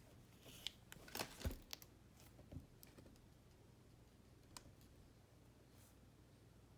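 Faint handling noises: a quick cluster of soft clicks and rustles from about half a second to three seconds in, and one more click a little after the middle, over a low steady room hum.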